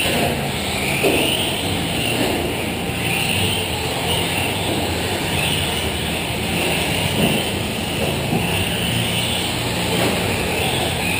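Several electric 4WD short-course RC trucks racing, their motors whining in rising and falling pitch as they accelerate and brake through the corners, over a steady background of track and hall noise.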